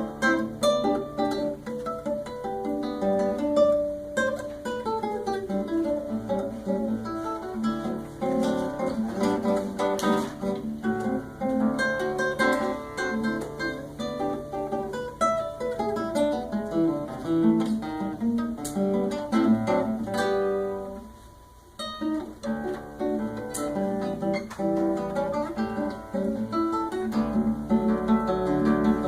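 Solo classical guitar playing a fast run of plucked notes, briefly dying away about two-thirds through before the playing picks up again.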